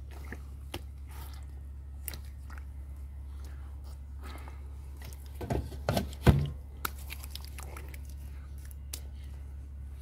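Hands being washed with water from a plastic bottle: scattered splashes, drips and wet rubbing. About six seconds in there is a short cluster of loud knocks and rustles close to the microphone.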